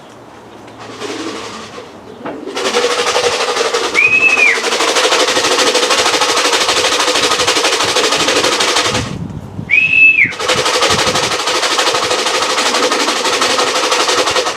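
A feed can being shaken hard, a long continuous rattle of grain, used to call racing pigeons down into the loft. It breaks off briefly just before the middle and starts again. Two short high whistle-like tones sound over it, one near the start of the rattle and one in the gap.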